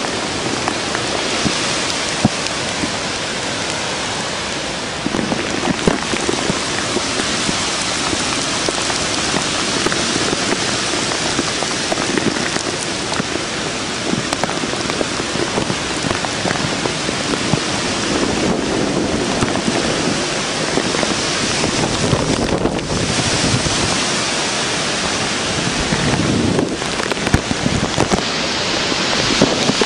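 Heavy wind-driven hurricane rain, a steady loud rushing hiss that swells and eases a little, with a few faint knocks.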